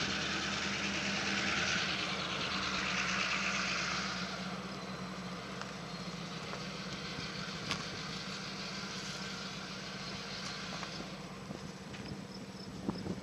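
Steady engine hum with a rushing noise that is loudest at first and drops off about four seconds in.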